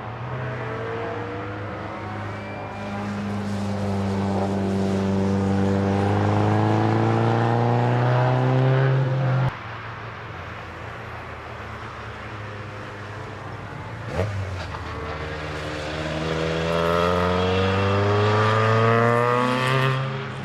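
Car engine at the track accelerating, its note climbing steadily for about nine seconds before cutting off abruptly. After a quieter stretch with one sharp click, an engine climbs through the revs again and fades away near the end.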